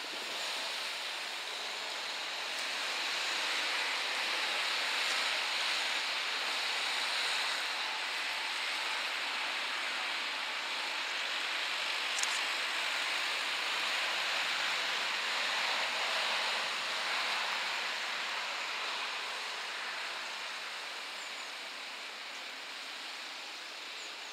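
Road traffic noise: tyres of passing cars hissing on asphalt, a steady rush that swells and then slowly fades, with one short sharp tick about halfway through.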